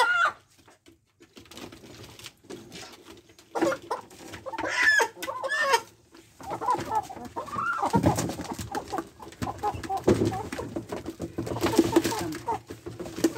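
Young chickens clucking and squawking as they are held by the legs and put into a coop, with a few calls about four seconds in and then a busier run of clucking and rustling over the second half.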